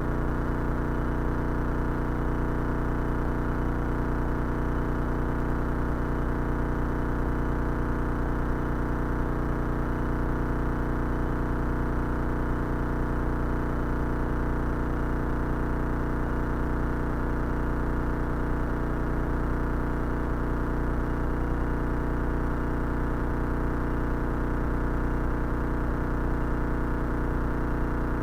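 Cessna 172's piston engine and propeller running as a steady, even drone on the base leg of a landing approach.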